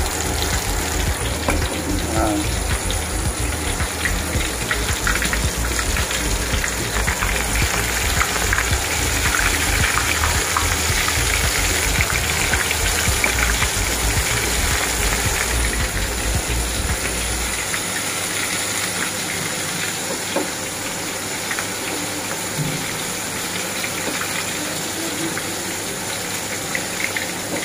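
Battered squid pieces deep-frying in hot oil in a wok: a steady sizzle with fine crackling. A low hum underneath stops about two-thirds of the way through.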